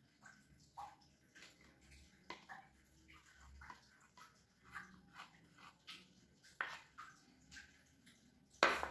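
Wheat flour being poured from a small glass bowl into a glass mixing bowl and scraped out with a spatula: irregular faint taps and scrapes, with a louder knock near the end.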